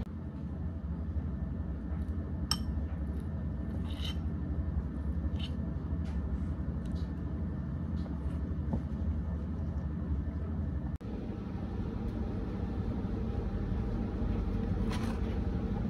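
A steady low rumble with light clicks of a metal spoon against a ceramic bowl, one every second or so through the first half.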